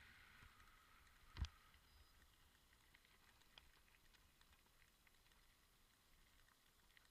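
Near silence, broken by one sharp knock about a second and a half in; a hiss fades away at the start, and a few faint ticks follow.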